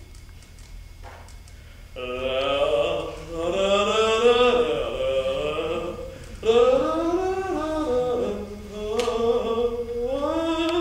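A man's voice singing a wordless tune in long, gliding held notes: two phrases, the first starting about two seconds in and the second after a short break near the middle.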